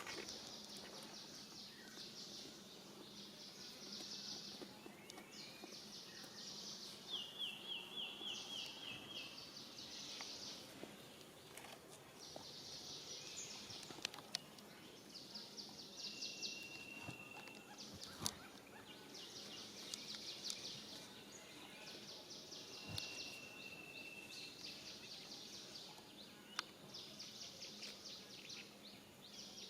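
Faint outdoor ambience of insects and birds: high-pitched, fast-pulsing chirps in repeated bursts about every two seconds. A rattling trill comes about a quarter of the way in, then two short whistled notes later on and a few light clicks.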